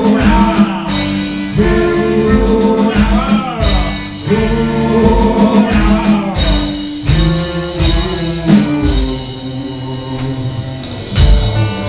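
Live band playing a song: a male lead vocal sung over electric guitar, violin, cello and bass guitar, with a steady beat.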